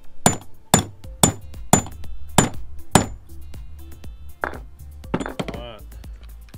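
Hammer striking a steel pin punch six times, about every half second, with a ringing metallic clink on each blow, trying to drive the pin out of a Honda Pioneer 520 differential carrier; the pin has not yet come out. Near the end, a lighter knock and a short clatter.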